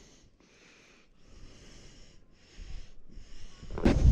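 A person breathing hard and fast close to the microphone, in quick, even breaths with short pauses between them. Near the end a sudden loud rush of wind noise cuts in.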